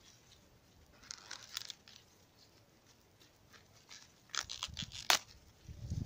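Sweetcorn husks being torn and stripped off a cob by hand: quiet leafy rustling and tearing, then a quick run of crackles about four seconds in, ending in a sharp snap.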